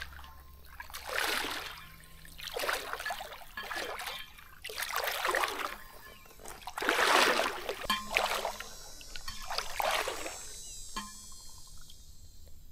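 Legs wading knee-deep through shallow swamp water: a sloshing swish with each stride, about one every second and a half, dying away near the end.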